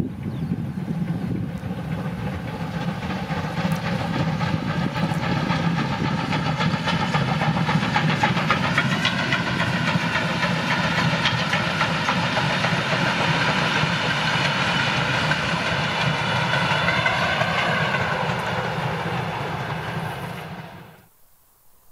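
Steam locomotive hauling a train of passenger coaches past: a steady rush of exhaust and the clatter of wheels over the rails, growing louder as it nears. The sound cuts off abruptly near the end.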